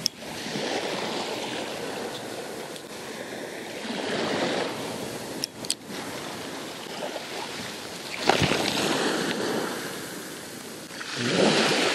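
Small waves washing onto a sandy shore: a steady hiss that swells and eases, with a few sharp clicks about halfway through.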